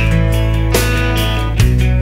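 Background music: strummed guitar over a steady bass, with a new chord about every second.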